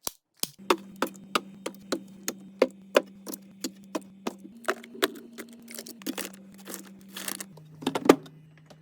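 Food containers and bottles being set down and placed into a refrigerator: a quick run of light clacks and taps, two or three a second, with a louder cluster near the end, over a steady low hum.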